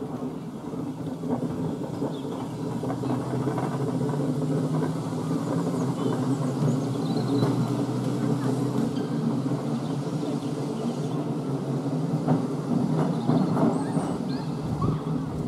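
Electric tramcar running along street track, with a steady low hum from its motors and gearing and a few light clicks from the wheels on the rails.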